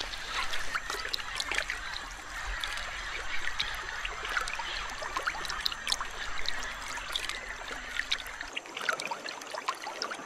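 Shallow river water trickling and lapping, with many small splashes, as a large anaconda slides through it.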